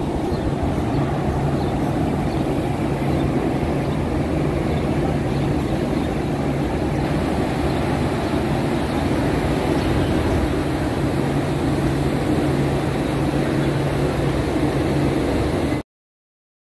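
Steady rushing background noise with a low hum underneath; it cuts off suddenly near the end.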